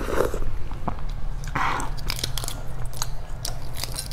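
Close-up eating of boiled eggs: a short sucking sound and chewing at the egg, with many small crackling clicks of eggshell being cracked and picked off by fingernails.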